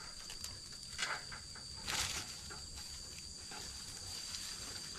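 Rural outdoor ambience: a steady high-pitched insect trill, with brief crackles of brush about one and two seconds in.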